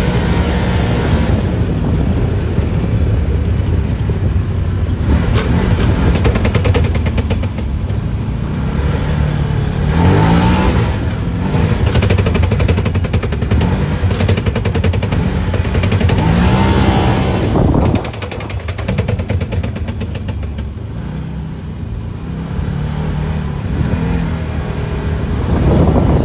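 UTV engine running on the move, its pitch rising several times as it accelerates.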